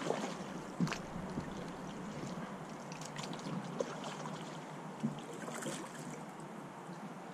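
Kayak being paddled: water swishing and dripping from the paddle blades, with a few light knocks.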